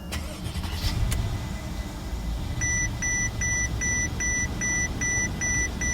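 Mercedes-Benz S550 dashboard warning chime beeping rapidly, about four beeps a second, starting a couple of seconds in, over a low steady rumble of the car running. The car is responding to the newly programmed ignition switch and key.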